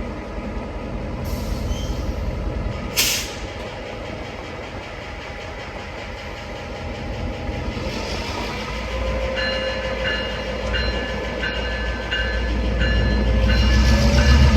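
Diesel locomotive rumbling and growing louder as it gets under way, its bell ringing steadily about once a second from about eight seconds in. A short sharp hiss of air about three seconds in.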